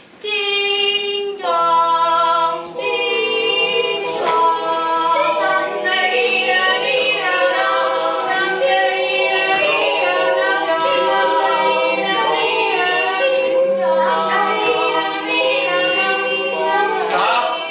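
Several voices singing together a cappella, with long held notes and no instruments.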